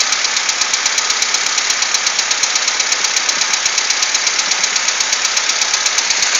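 ZMZ-406 inline-four petrol engine idling steadily with a rapid, even ticking knock from the top end, which the owner suspects is the hydraulic valve lifters.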